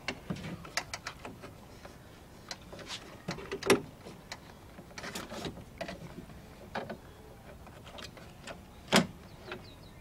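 Plastic interior door handle housing of a 1999 Chevy Tahoe clicking and knocking against the door's metal inner panel as it is worked into its mounting slots, with two louder knocks, one near four seconds in and one near nine seconds in.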